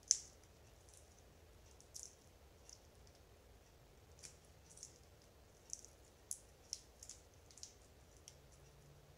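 Faint, sharp little clicks and crackles of a raw shrimp's legs and shell being pulled off by hand, about a dozen spread unevenly, the first the loudest.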